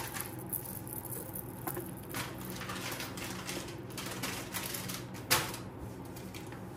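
A two-line Victorian necklace clinking and rustling as it is handled and laid on a velvet display bust: scattered light clicks of metal and stones, with one sharper click about five seconds in.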